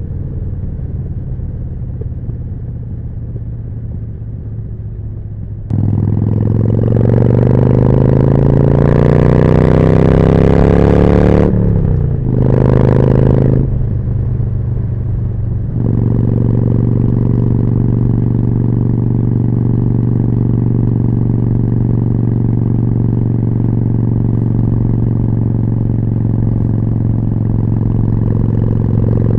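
Harley-Davidson Forty-Eight's air-cooled V-twin through a Jekill & Hyde exhaust, heard from the rider's seat. It runs softly at first, then about six seconds in turns suddenly louder and pulls hard with rising pitch, shifts up, gives a short burst, and settles into a steady, even note at constant speed.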